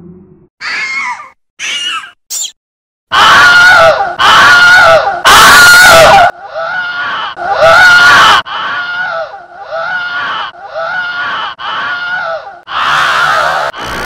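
The Wilhelm scream sound effect played in a quick string of altered versions. First come three short, high-pitched snippets, each shorter than the last. From about three seconds in, very loud distorted screams follow, then the scream repeats about six times in quick succession, played reversed. Near the end comes a harsh, smeared version.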